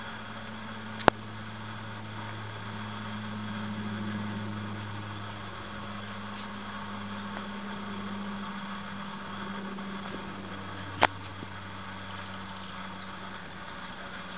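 A steady low hum runs throughout, with two sharp clicks, one about a second in and one about eleven seconds in.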